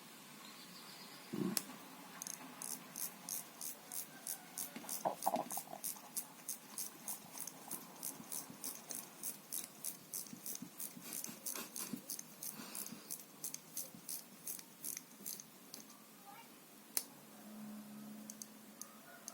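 A Poljot mechanical alarm wristwatch clicking sharply and evenly, about three clicks a second, for some thirteen seconds. A low handling thump comes just before the clicking starts, and a single click and a brief low hum come near the end.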